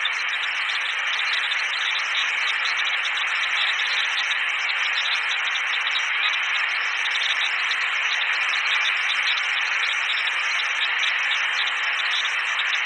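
A steady, even hiss like static, strongest in the upper middle range and without any deep rumble.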